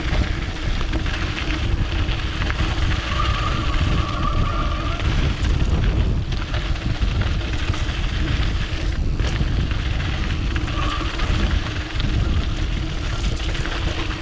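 Mountain bike descending a dirt downhill trail: wind rushing over the action camera's microphone and the tyres rumbling over the ground, with two brief high squeals, a few seconds in and again about two-thirds of the way through.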